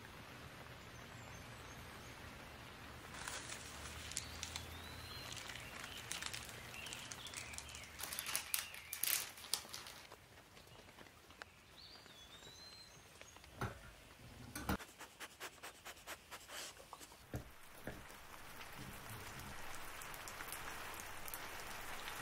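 Soft steady patter of rain with a few short bird chirps over it. In the middle come bunches of sharp clicks and taps, a knife trimming and cutting the pastry crust.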